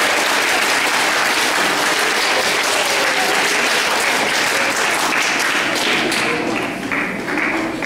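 Audience applause: dense, steady clapping that thins out to scattered separate claps about six or seven seconds in.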